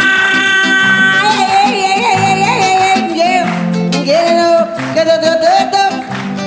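Acoustic guitar music in a Latin style, plucked and strummed, with a long held melody line on top that slides into its notes and wavers in pitch.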